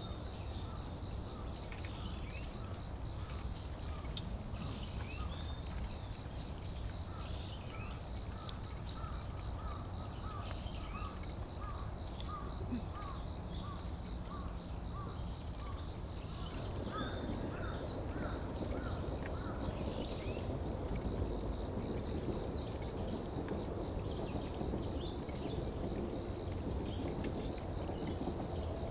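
An autumn insect chirping in a fast, steady, high-pitched pulsing trill that runs on without a break. A softer run of lower chirps joins it through the middle.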